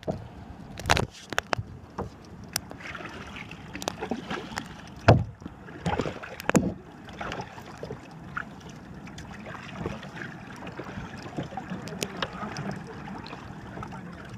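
Water sloshing and slapping against a clear plastic kayak hull, with irregular knocks and splashes. The loudest come about one, five and six to seven seconds in.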